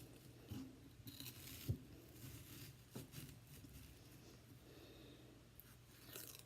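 Faint knife work on an onion on a cutting board, with two soft knocks in the first half.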